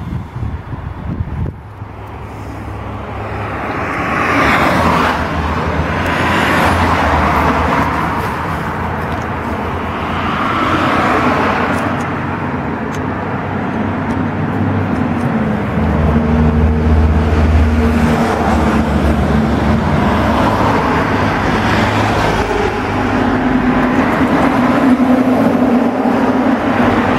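Highway bus engine running with road noise, getting louder over the first few seconds as the bus picks up speed, then holding steady with small shifts in engine pitch.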